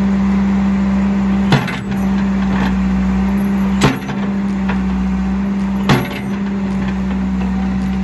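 John Deere 310D backhoe's diesel engine running steadily under load, with three sharp knocks about two seconds apart as the bucket strikes and breaks the concrete slab.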